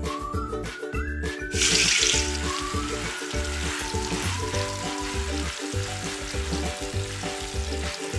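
Tofu cubes deep-frying in hot oil in a wok, an even sizzle that starts suddenly about a second and a half in and runs on steadily, over background music with a steady beat.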